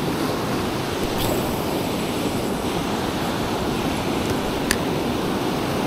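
Shallow ocean surf washing and breaking over sand in a steady rush, with a single faint click about three-quarters of the way through.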